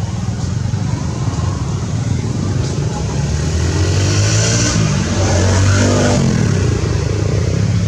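A motor vehicle engine passing by, its pitch sweeping up and then falling away between about four and six seconds in, over a steady low rumble.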